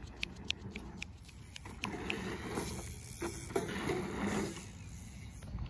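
Bicycle rear hub ratcheting in even clicks, about four a second, which stop about two seconds in. Then a mountain bike's tyres rolling over the dirt as it passes close.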